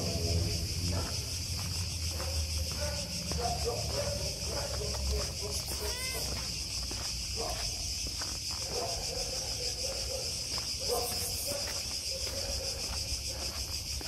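Steady high-pitched drone of insects, with footsteps on a paved path.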